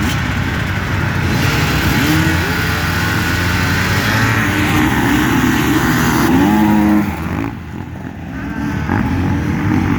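A small engine running and revving, its pitch rising about two seconds in and again near six seconds, then easing off for a moment before picking up again.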